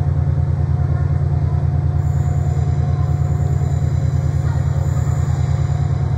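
Diesel train engine running at a steady idle, a loud low rumble with a fast even pulse.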